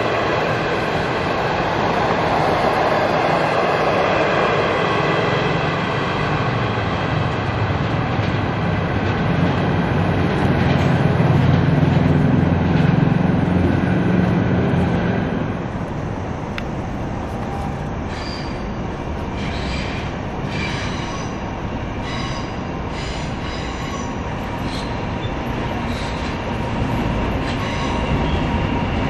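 A passenger train of green coaches rolling past on steel rails, with a low rumble and steady high wheel squeal, which fade after about fifteen seconds. Quieter short high squeaks follow, and another train is heard approaching near the end.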